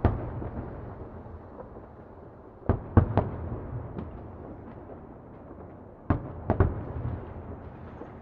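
Distant fireworks exploding: a bang at the start, a quick group of three bangs about three seconds in and another group about six seconds in, each trailing off in a rolling, echoing rumble. Little high treble, so the bursts sound muffled by distance.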